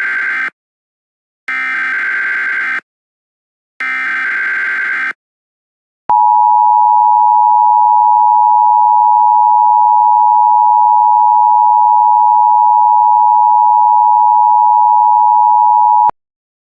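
Emergency Alert System alert tones. Three bursts of SAME header data tones come first (the first already under way), then about six seconds in the steady two-tone attention signal sounds for about ten seconds and cuts off abruptly.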